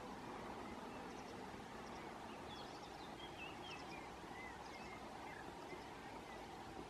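Steady outdoor background hiss with faint, thin bird calls: a run of short, wavering high notes in the middle.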